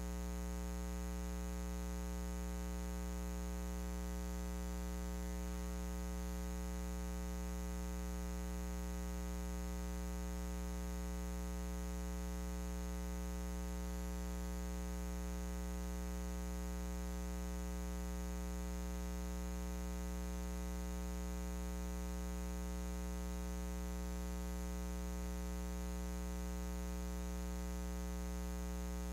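Steady electrical mains hum: a low buzz with a ladder of overtones, over a faint hiss.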